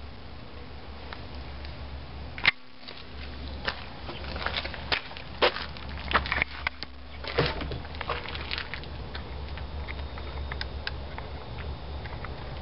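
Footsteps with scattered short clicks and crunches of a person walking out over a debris-strewn floor and ground, over a steady low rumble on the microphone. A sharp click about two and a half seconds in is the loudest sound.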